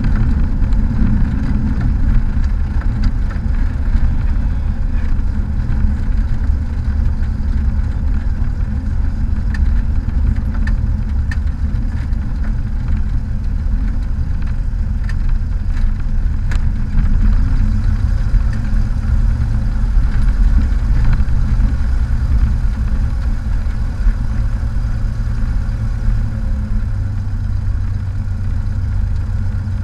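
Cessna 182's piston engine running at low power as the plane rolls out and taxis after landing, heard from inside the cabin as a steady low drone, with a few faint clicks in the middle.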